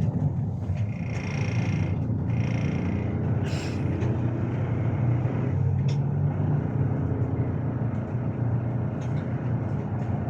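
Interior of a MAZ-215 articulated city bus under way: a steady low rumble of the diesel engine and running gear heard from inside the cabin, with a short hiss of air about three and a half seconds in.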